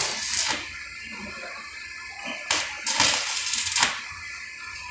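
Stick welding arc crackling and sizzling as tack welds are struck on thin 4x4 steel tubing, in two short bursts: about half a second at the start and about a second and a half in the middle.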